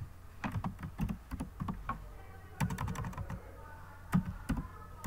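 Typing on a computer keyboard: irregular key clicks, some in quick runs and some alone, with short pauses between.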